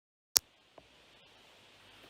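A single sharp click as the recording starts, a fainter click about half a second later, then faint steady hiss of room tone.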